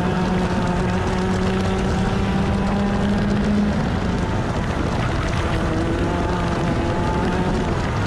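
A 125cc TaG kart's two-stroke engine running hard at high revs, heard onboard, its pitch climbing slowly for nearly four seconds, then steadying and climbing again in the second half. Wind rushes over the microphone throughout.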